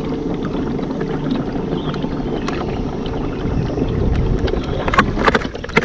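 Kayak moving across the water: a steady low rush of water and wind noise, with a few sharp knocks near the end.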